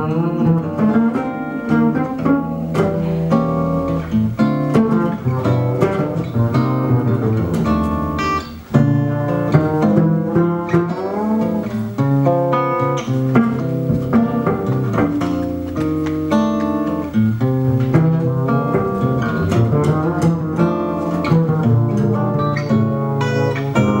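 Live jazz played on an archtop acoustic guitar over a plucked upright double bass, a run of picked melodic notes over a walking low line.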